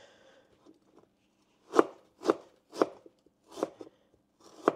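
Knife chopping on a cutting board: five separate chops, starting about two seconds in and coming at an uneven, unhurried pace.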